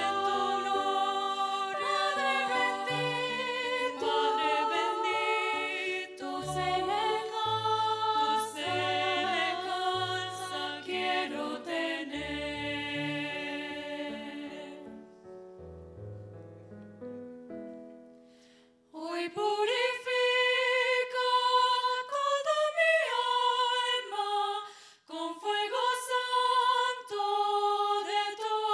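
Voices singing a Spanish-language hymn in harmony. The line ends and fades out a little past halfway, and after a brief pause the singing starts again on the next verse.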